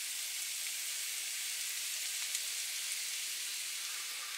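Redfish and breadcrumb stuffing sizzling in a hot pan: a steady, even hiss of frying.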